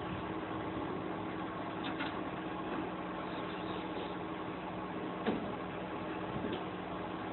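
Steady mechanical hum with hiss, heard from inside a parked vehicle's cab, with a few faint clicks; the clearest comes a little past the middle.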